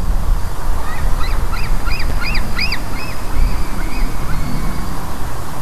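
Fledgling eaglets calling: a run of about ten rising-and-falling calls, about three a second, loudest midway and then tailing off. Steady wind rumble on the microphone underneath.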